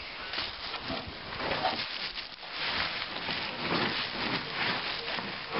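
Plastic wrapping crinkling and rustling in irregular bursts as it is pulled off a new fuel tank packed in a cardboard box, busier in the second half.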